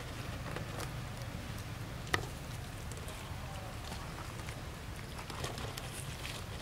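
Outdoor background: a steady low rumble with scattered small clicks and rustles, and one sharp click about two seconds in.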